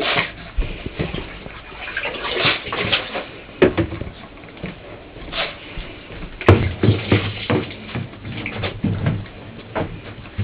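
Yorkshire terrier mix scrabbling and scratching, a run of irregular scrapes and rustles with a sharp knock about a third of the way in and a louder one past the middle.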